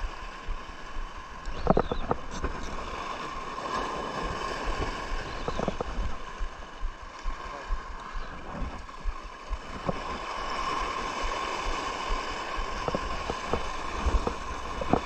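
Sea water washing and gurgling at the shore, with a few short sharp knocks.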